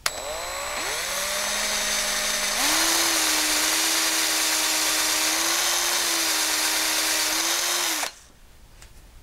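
Hand drill turning a taper reamer in the cross-pin hole of an AR-15 gas block and barrel, reaming the hole for a taper pin. The motor winds up at the start, speeds up a step about two and a half seconds in, runs steady, and stops suddenly about a second before the end.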